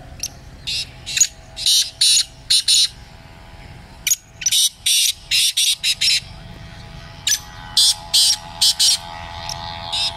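Caged francolin (teetar) calling: loud, short, harsh notes in quick runs, each run broken off by a pause of a second or so.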